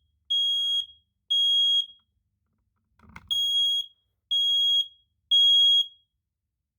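USI Electric smoke alarm sounding in test, giving the temporal-three evacuation pattern: loud, high-pitched half-second beeps in threes with a pause of about a second and a half between groups. Two beeps finish one group, then a full group of three follows.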